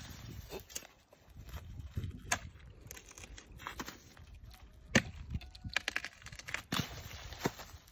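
Hooked blade on a long wooden pole chopping into mandacaru cactus branches: a series of sharp cracking strikes, irregularly spaced, the loudest about five seconds in, as branches are cut loose for animal fodder.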